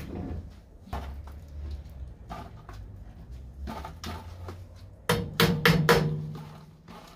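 Tire-shop work: scattered knocks and clanks over a low rumble, then four sharp hammer-like strikes on metal in quick succession about five seconds in, with a ringing tone under them.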